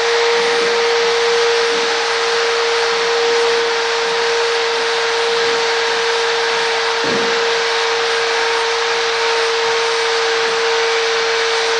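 Steady whirring noise with a constant mid-pitched hum underneath, running without a break like an electric motor.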